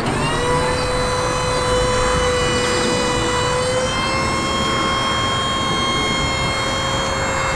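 Hydraulic drive of a truck-mounted aerial work platform raising its boom and basket: a steady high whine that rises in pitch at the start and steps up slightly about four seconds in, over a low engine rumble.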